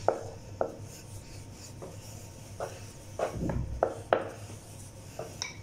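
Wooden rolling pin rolling chapati dough on a plastic cutting board: a soft rubbing roll with about eight light clicks of wood on plastic as the pin is set down and the dough turned, and a low rumble about three and a half seconds in.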